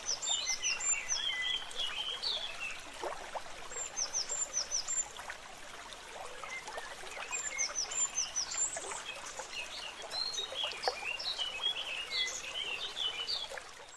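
Several birds singing and chirping, with quick runs of short high notes and chirps that come and go over a faint steady hiss.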